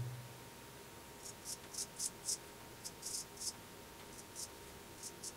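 Dovo 5/8 straight razor scraping lathered stubble off the neck: about a dozen short, crisp rasps in small groups of two or three strokes.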